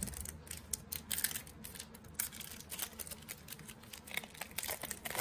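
Wrapper of a soccer trading card pack being torn open and crinkled: light, irregular crackling in several short spells.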